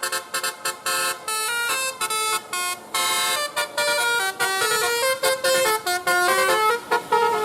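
Bus 'telolet basuri' musical horn playing a quick melody: short pitched notes stepping up and down with brief gaps between them, and a longer held chord about three seconds in.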